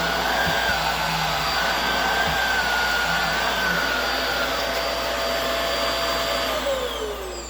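Hoover Air Steerable upright vacuum cleaner running steadily with a motor whine. About six and a half seconds in it is switched off, and the whine falls in pitch as the motor spins down.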